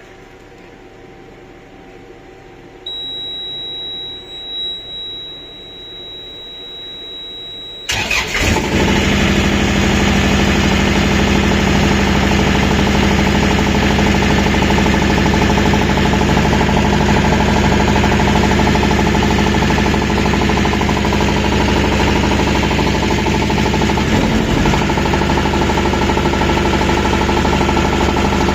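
A refrigeration unit's engine starting and running. A steady high tone sounds for about five seconds, then the engine catches about eight seconds in and runs steadily and loudly, with a knock that the owner is asking the cause of.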